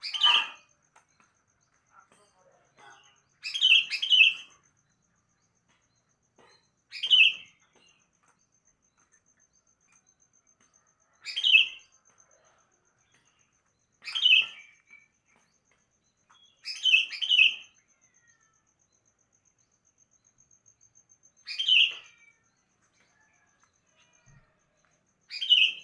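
Sooty-headed bulbul (kutilang) calling: short chirps repeated every three to four seconds, some given as quick doubles or triples.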